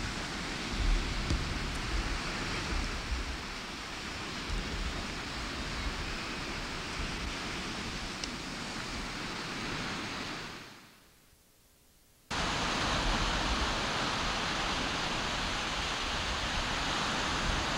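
Steady rushing of wind and lake waves on the shore, with wind buffeting the microphone in low rumbles during the first few seconds. The sound fades out about ten and a half seconds in and comes back abruptly at a cut a couple of seconds later.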